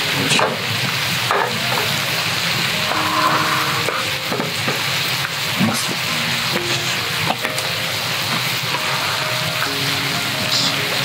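Horumon and bean sprouts sizzling steadily in a hot pan. A few light clicks come from chopsticks scraping food from a takeout tray into a metal cup.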